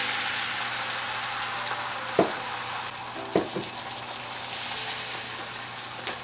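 Beaten eggs sizzling in hot mustard oil in a frying pan, a steady sizzle that slowly fades as the omelette sets. A few short light knocks come about two seconds in and again about three and a half seconds in.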